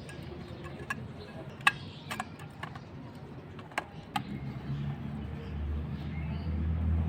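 Several sharp clicks and taps at irregular intervals. About four and a half seconds in, a low steady hum starts and grows louder.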